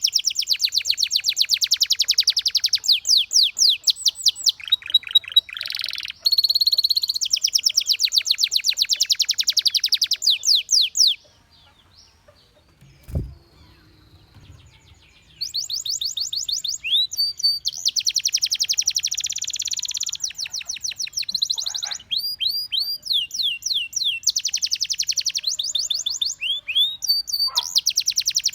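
Domestic canary singing in long, fast trills of repeated high notes, phrase after phrase. The song stops for about four seconds a little before halfway, with one low thump in the pause, then resumes.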